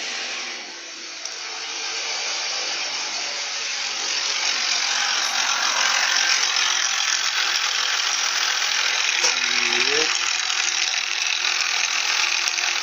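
Car engine running just after start-up with a loud metallic timing-chain rattle that builds over the first few seconds and then holds steady, which the owner blames on a faulty chain tensioner.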